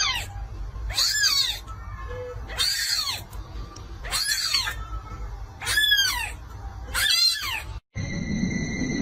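Young kitten meowing repeatedly, six high-pitched mews about a second and a half apart. Near the end the sound cuts out briefly and steady high electronic tones come in.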